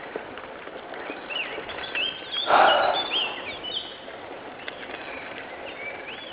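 Songbirds singing short whistled phrases that swoop up and down, with a brief loud rush of noise about two and a half seconds in, over a steady background hiss.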